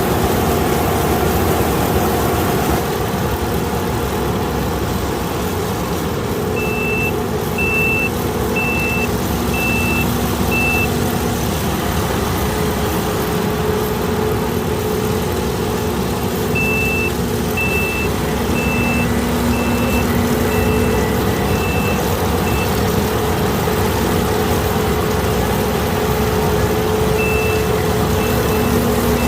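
Kukje KC5130 rice combine harvester running steadily under load. A high warning beeper sounds about once a second in three separate runs, the first about seven seconds in, the last near the end.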